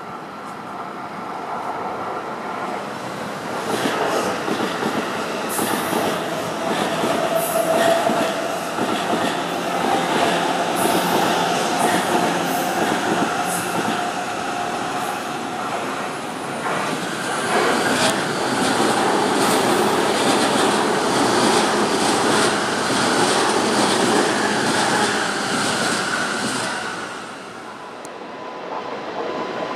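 Keihin-Tohoku Line E233 series electric trains passing on the tracks below: wheels clacking over rail joints and points with a steady whine. It builds up over the first few seconds and fades briefly near the end.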